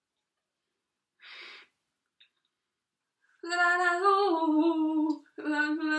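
A woman sings a tune unaccompanied, starting about three and a half seconds in, in long held notes that step up and down in pitch. Before that there is silence apart from a brief soft noise about a second in.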